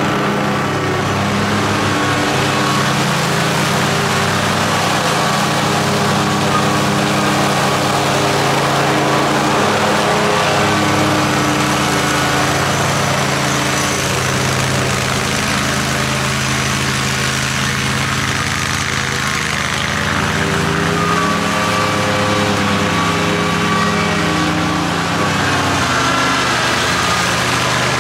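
60-inch zero-turn riding mower's engine running steadily while mowing overgrown grass. The engine note wavers slightly up and down.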